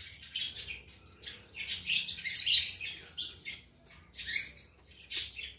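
Birds chirping in repeated clusters of short, high chirps, with brief pauses between the clusters.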